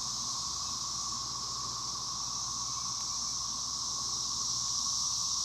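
Chorus of cicadas, a constant, steady droning hiss, with a fainter lower band running beneath it.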